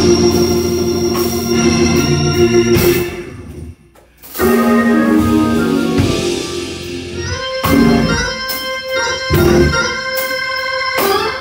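Hammond-style console organ playing a slow gospel hymn in sustained chords, breaking off briefly about four seconds in before the held chords come back in.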